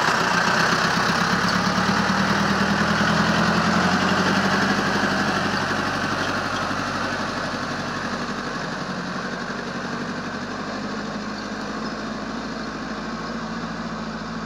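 Engine of a mini dump truck laden with iron flat bars, running as the truck pulls away, growing gradually quieter as it moves off.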